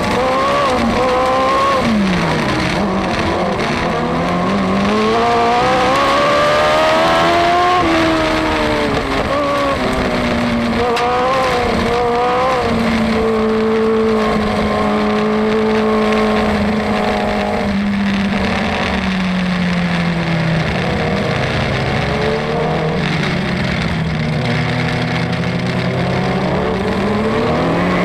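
Dwarf car's engine heard from inside the cockpit, revving up and falling back again and again through the corners of a dirt oval. About halfway through it holds one steady pitch for several seconds, running at an even pace under a caution. It then drops lower and picks up again near the end.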